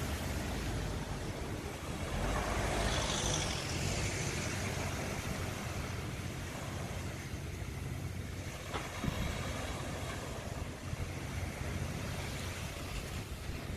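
Seashore ambience: surf and wind, with wind buffeting the microphone, a swell of noise about two to four seconds in.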